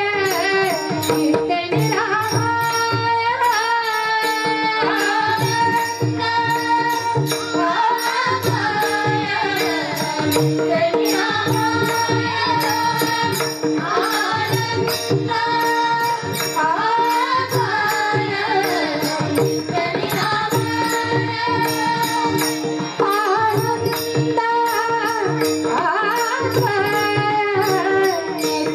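A woman singing a Marathi bhajan, a devotional song, with her melody gliding over a steady drone and accompanied by regular percussion strokes throughout.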